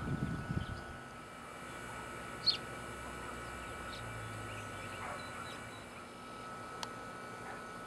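Birds chirping outdoors in short, separate calls, the loudest about two and a half seconds in, over a faint steady high hum. A low rumble of wind on the microphone fills the first second.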